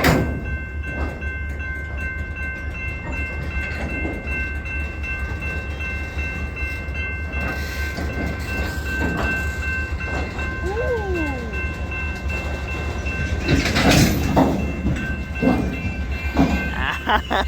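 Freight train moving slowly on the line: a steady low rumble with a few constant high-pitched tones over it. A loud sharp clank comes about 14 seconds in, with smaller knocks near the end.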